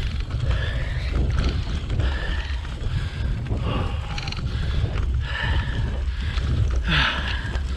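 A cyclist breathing hard after climbing a hill, breaths coming roughly once a second, over a steady low rumble of wind on the microphone.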